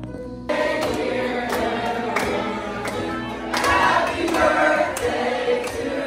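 Many people singing together at once, like a large choir, starting abruptly about half a second in.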